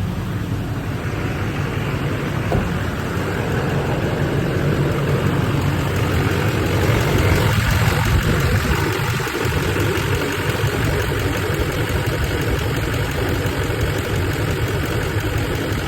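2005 Chevrolet Duramax 6.6-litre V8 turbodiesel idling steadily just after starting. It keeps running without dying now that the chafed, shorted injector-driver (FICM) harness wire that kept blowing its fuse has been repaired.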